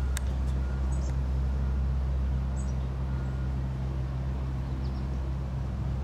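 Small creek running over shallow riffles, under a steady low rumble, with two brief high chirps about half a second and two and a half seconds in.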